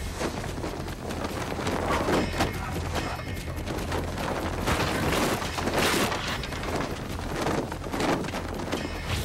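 Martial-arts film fight soundtrack: a steady musical score under a rapid, dense run of hits and thuds from the fight's sound effects, with one loud sharp burst about six seconds in.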